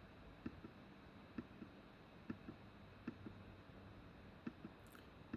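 Computer mouse button clicked over and over, each click a quick press-and-release pair, about one click a second, against faint room hiss.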